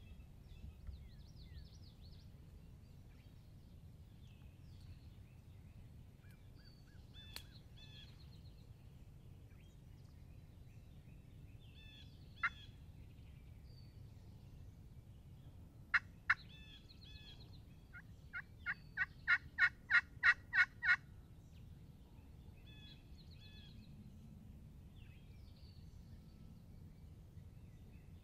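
Turkey yelping: a run of about a dozen evenly spaced yelps, about four a second and growing louder, after two sharp notes a couple of seconds earlier. Songbirds chirp on and off throughout.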